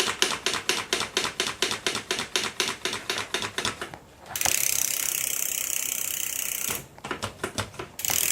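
Bicycle rear-hub freewheel clicking rapidly, about eight clicks a second, as the wheel spins freely. A steady hiss cuts in for a couple of seconds past the middle, then the clicking returns briefly.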